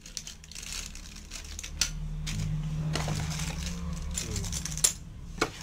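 Small plastic bags of action-camera mounts and accessories crinkling as they are handled and set down on a tile floor, with a few sharp clicks. A low steady hum runs underneath.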